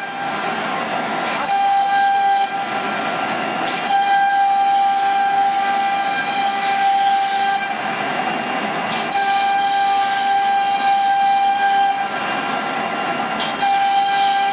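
CNC router spindle whining steadily as its small bit engraves a board. Four times the whine gives way to a rougher, noisier stretch of cutting sound lasting a second or so.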